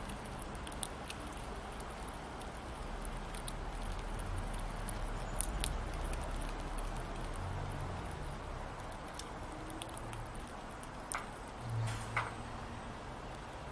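Fox squirrel eating sunflower seeds off a wooden plate: scattered small, sharp clicks and crunches as it cracks the seed shells, over a steady low background hum.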